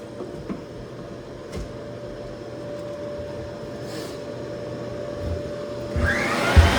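A steady machine hum with a few light clicks, then about six seconds in a motor spins up with a rising whine and a loud rush of noise as the Lagler Flip floor sander starts.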